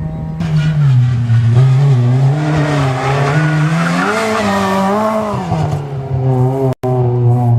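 Rally car's engine at full effort, its note rising and falling repeatedly as the driver works the throttle and gears through a section of the stage, with the tyres squealing. The sound drops out for an instant near the end.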